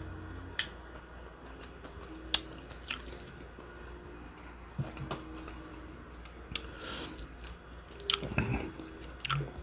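Close-miked chewing and biting of a honey-drizzled fried chicken wing, with scattered sharp clicks and crunches, a cluster of them near the end.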